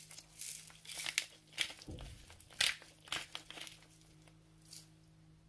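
Hand-held salt and pepper mill being twisted over a dish, giving a run of short, dry, crunching grinds at an uneven pace. There is one dull low thump about two seconds in.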